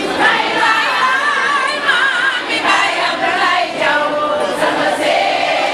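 A crowd of voices singing together in chorus, several wavering melodic lines overlapping at a steady, loud level.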